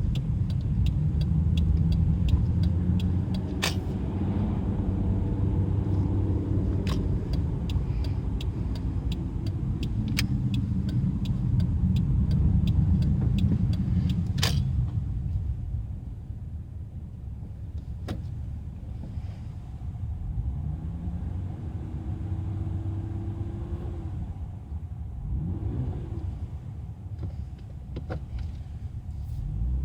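Car engine running a few minutes after a cold start, its pitch shifting up and down, with many sharp clicks over the first half. It goes quieter about halfway through.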